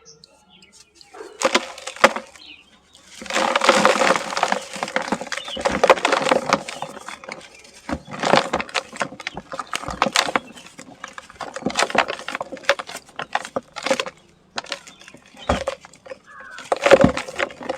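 Dry, dusty sand-cement chunks crumbling and crunching, in bursts of one to several seconds with many sharp snaps and short quiet gaps between.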